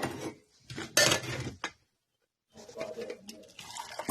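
Clattering and knocking of hard objects, a few sharp knocks then a noisy clatter, like dishes or utensils being handled; the sound cuts out completely for a moment about halfway, then lighter clattering resumes.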